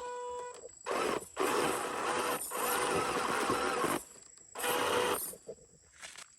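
A 1/12-scale MN128 RC Jeep's electric motor and gearbox whining in three throttle bursts, the pitch wavering, with short pauses between.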